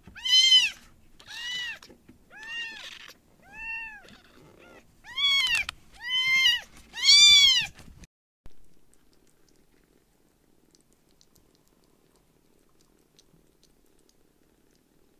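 A very young kitten mewing: seven high cries about a second apart, each rising then falling in pitch, the last three loudest. The cries stop about eight seconds in.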